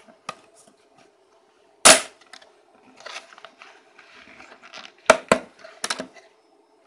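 Thin PVC sheet's holding tabs snapping as a CNC-milled part is pressed out by hand: one sharp crack about two seconds in, then a quick run of three or four more cracks near the end, with light plastic rustling between.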